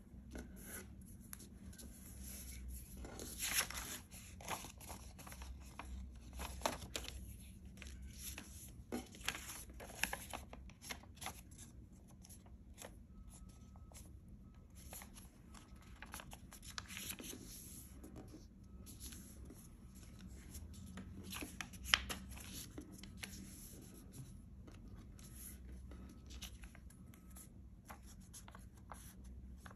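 Paper being folded and creased by hand: intermittent rustling and crinkling with short crackles. The sharpest are about three and a half seconds in and about 22 seconds in.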